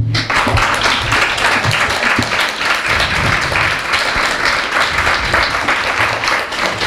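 Audience applauding, starting suddenly and holding steady.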